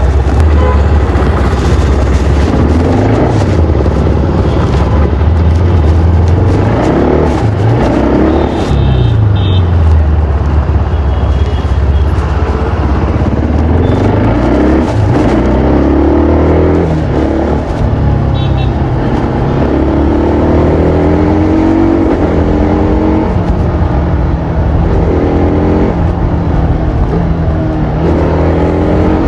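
TVS Apache RR310's single-cylinder engine heard through its stock exhaust while riding, the revs climbing and dropping again and again as the bike accelerates and eases off. In the later part the pitch steps up in a run of climbs and drops, as it would when shifting up through the gears.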